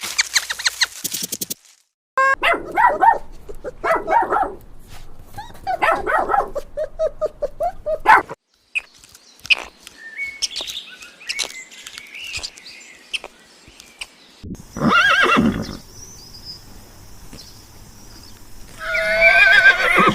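Horses neighing and whinnying in a string of separate short takes, each a quavering, pulsing call, with abrupt changes between takes.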